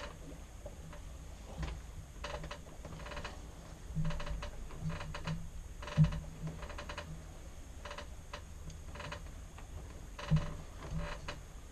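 Sailboat wheel steering at the helm clicking and creaking in irregular runs as the wheel is worked, with a couple of louder knocks.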